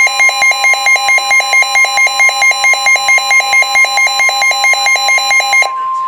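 A NOAA weather radio sounding its warning alarm: a rapid, loud two-tone beeping of about four beeps a second, over the steady 1050 Hz warning alert tone broadcast by the station. The beeping cuts off near the end, leaving the single steady tone.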